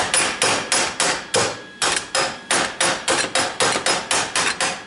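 A hammer striking metal in a rapid, even run of about twenty blows, four to five a second, each with a short ring.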